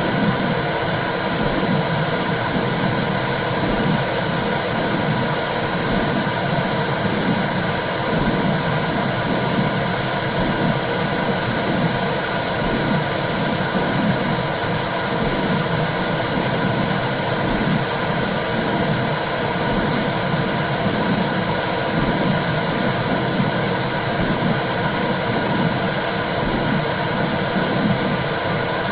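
Womb sound for soothing a baby: a steady whooshing noise with a low, regular pulsing underneath.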